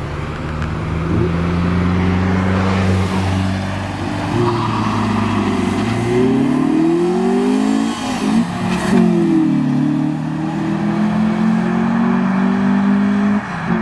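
Car engine running steadily, then revving up, its pitch climbing to a peak about eight seconds in and falling away as the car goes past. After that an engine holds a steady note.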